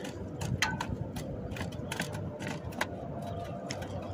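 Scattered light clicks and ticks, irregularly spaced, over a steady low rumble.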